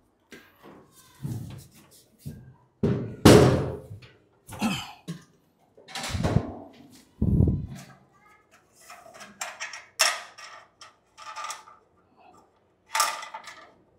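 Steel filing cabinet being handled: a series of separate thuds and knocks as the cabinet is tipped and set down on the floor, the loudest about three seconds in. Lighter metal clatter follows as a drawer is worked out of the cabinet.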